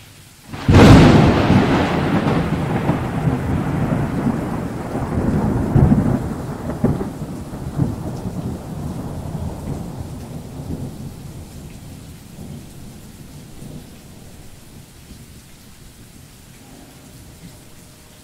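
A thunderclap: a sudden loud crack about a second in, then a long rolling rumble with a few more swells that dies away over roughly twelve seconds, leaving a faint steady hiss.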